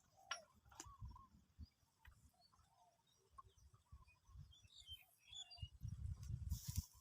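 Faint outdoor ambience: scattered bird chirps over soft low thumps of handling noise, with a brief hiss about six and a half seconds in.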